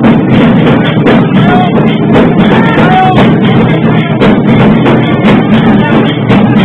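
Loud procession music dominated by drums beaten in a fast, dense rhythm, continuous and very close to the recorder.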